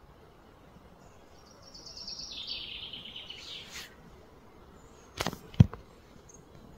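A high, rapid trill that steps down in pitch, then two sharp knocks about five seconds in, the second loud and deep.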